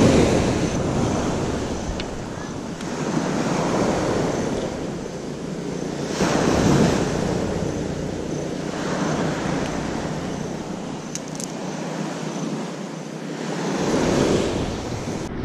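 Small surf breaking and washing up a gravel beach, swelling in surges every six to seven seconds, with wind on the microphone.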